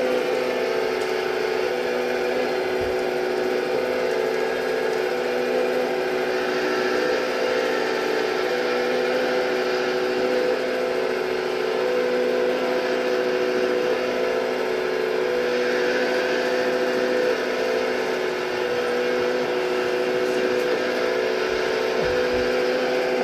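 Hydraulic pump of a radio-controlled MAGOM HRC model excavator running with a steady whine, a hum of several even tones holding nearly constant pitch as the machine works, digging and loading gravel.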